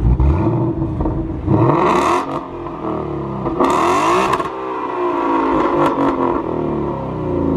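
2018 Mustang GT's 5.0 V8 revved a few times through a Corsa Sport cat-back exhaust. The pitch climbs and falls with each blip of the throttle.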